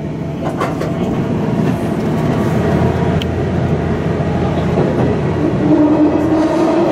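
KiHa 110-series diesel railcar running through a tunnel, heard from inside at the front: a steady rumble of engine and wheels on the rails. A steady humming tone comes in near the end.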